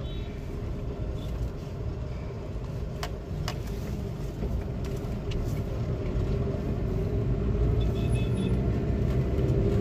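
A car driving, heard from inside the cabin: a steady low engine and road rumble that grows slowly louder toward the end, with a couple of faint clicks about three seconds in.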